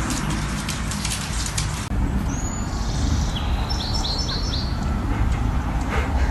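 Rapid crackling clicks for about two seconds, then a bird chirping over a low rumble: one short call, then a quick run of four short falling chirps.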